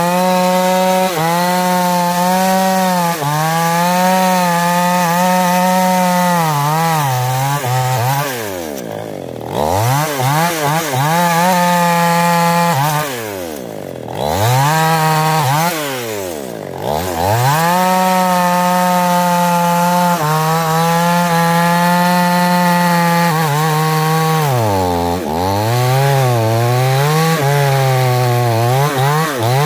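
Two-stroke chainsaw running at high revs, its engine pitch wavering and sagging, then plunging steeply three times in the middle and once more near the end before climbing back each time.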